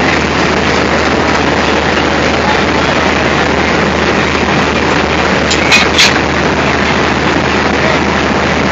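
Diesel locomotive engine running at idle close by: a loud, steady din over a low hum. Two sharp metallic clanks come just before six seconds in.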